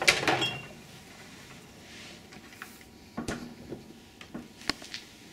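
Hotel minibar cabinet and fridge doors being handled. A short clatter comes at the start, then a few sharp knocks and clicks as the wooden cabinet door is pushed shut, about three seconds in and again near the end.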